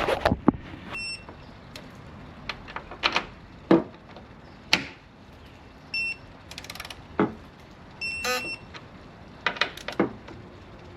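Wrench and socket work tightening a suspension fastener to 20 ft-lb of torque: scattered metal clicks and knocks, with three short high beeps, about a second in, around six seconds, and a longer one just past eight seconds.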